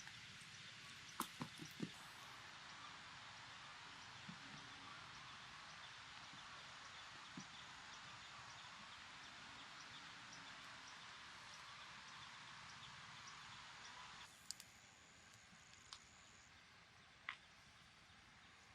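Faint, steady outdoor background hiss with a few soft clicks and knocks. The hiss drops sharply about fourteen seconds in.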